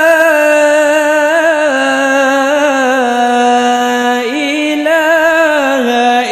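A male qari's solo voice reciting the Qur'an in the melodic tilawah style, drawing out long melismatic notes with wavering ornaments. The pitch steps down over the first few seconds, breaks briefly about four seconds in, rises, then falls again near the end.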